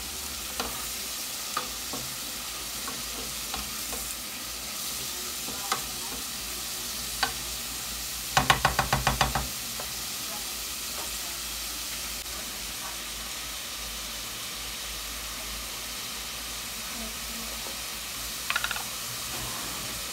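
Chopped vegetables sizzling steadily in a steel pot, with a wooden spoon stirring and knocking lightly against the pot now and then. A little past eight seconds in comes a quick rattle of about eight sharp taps, the spoon knocked against the pot, and a shorter cluster of taps near the end.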